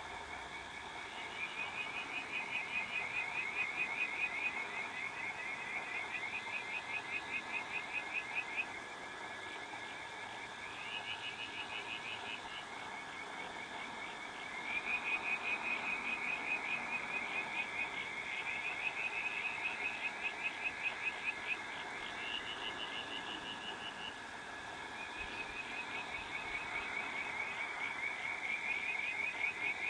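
A chorus of frogs calling in rapid pulsed trills, several voices at slightly different pitches overlapping. Each trill lasts a few seconds and is taken up again by another.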